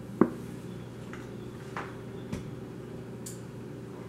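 A spice shaker being handled off-camera: one sharp click about a quarter second in, then a few faint clicks and light knocks. A steady low hum runs underneath.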